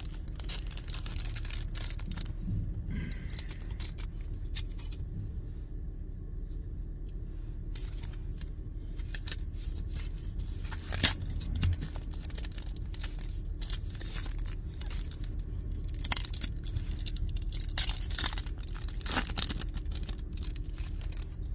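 A foil Pokémon card booster pack being torn open and crinkled by hand, with a few sharp crackles of the wrapper in the second half. A steady low hum of the car interior runs underneath.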